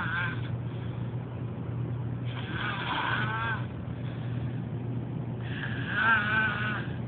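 Snoring, one whistling breath about every three seconds, each a wavering high-pitched tone that rises and falls, over a steady low hum.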